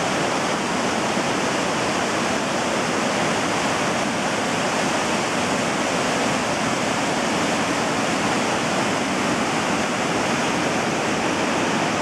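Pemigewasset River rushing in whitewater cascades over rock ledges: a steady, loud wash of falling water that never lets up.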